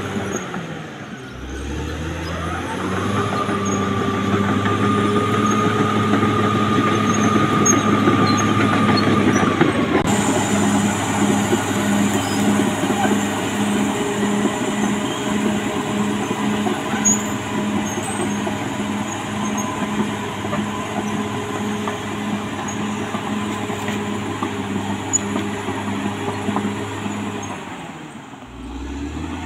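Caterpillar D6R XL crawler dozer running under load: the diesel engine runs steadily while the steel tracks clank and squeal. A whine rises about two seconds in and holds steady for several seconds.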